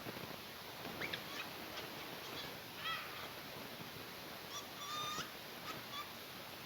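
Cockatiel giving a few short chirps and whistled calls, with a slightly longer call about five seconds in, over a faint steady hiss.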